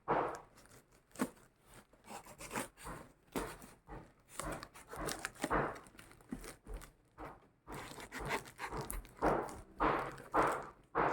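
Packaging being handled and torn open while unboxing: irregular rustling, ripping and crinkling of wrapping, with small knocks.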